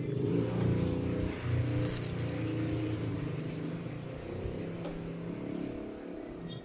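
A motor vehicle's engine running, a steady low drone that is the loudest sound, with light rustling of the paper burger wrapper as hands handle the buns.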